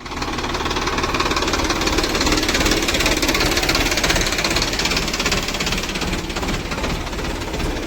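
Diesel engine of heavy machinery running steadily, with a fast, even firing beat.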